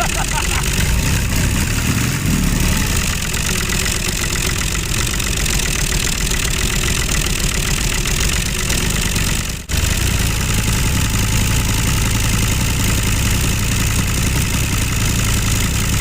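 Engine running steadily with a low, fast, even pulse, broken off for an instant about ten seconds in.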